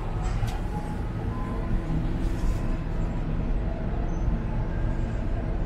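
Emirates cable car gondola cabin running along its haul rope, a steady low rumble inside the cabin with a few light rattles just after the start and again about two seconds in as it passes a support tower.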